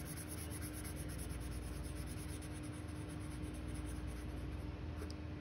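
Black Sharpie permanent marker scribbling on paper, quick back-and-forth strokes colouring in a filled area.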